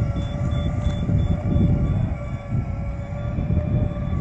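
iTowbot electric aircraft tug running under load, a steady motor whine, with a quick high beep pulsing about three times a second for most of the time. Wind rumble on the microphone underneath.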